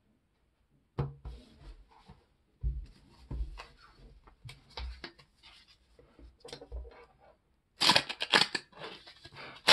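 Cards and paper being handled on a wooden tabletop, with scattered taps and rustles. About eight seconds in, a paper trading-card booster pack is torn open, a louder burst of tearing and crinkling paper.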